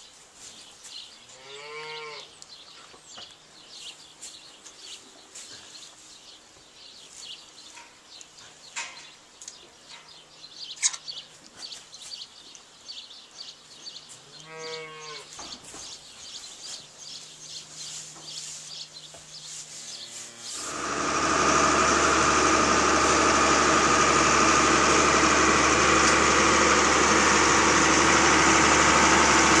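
A newborn Jersey heifer calf bleats twice, about two seconds in and again about halfway through. About two-thirds of the way in, a loud, steady mechanical noise starts suddenly and carries on to the end.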